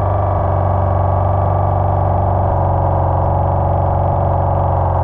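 A 3D-printed model outboard motor running steadily underwater, its propeller spinning: a constant buzzing hum, heard from below the water surface.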